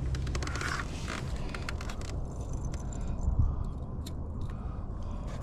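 Light clicks and rattles of small hard objects being handled, thick in the first second and then scattered, over a low steady rumble.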